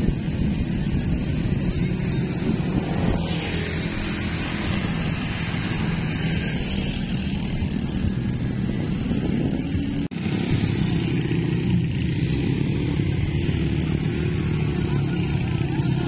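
A motor vehicle's engine running steadily, with a split-second dropout about ten seconds in.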